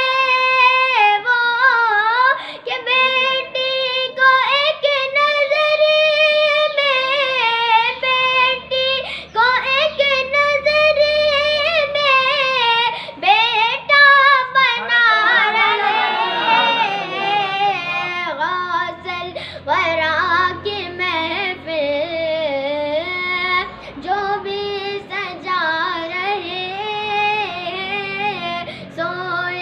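A boy singing a manqabat, an Urdu devotional song in praise of Ghaus-e-Azam, in long held notes whose pitch wavers and bends, with no gaps between phrases.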